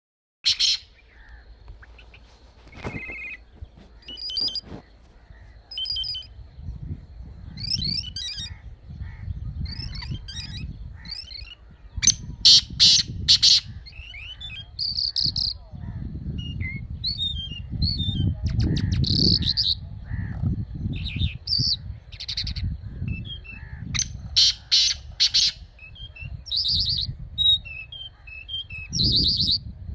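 Small songbirds chirping and calling in quick, repeated notes and short trills, over a low, uneven rumble.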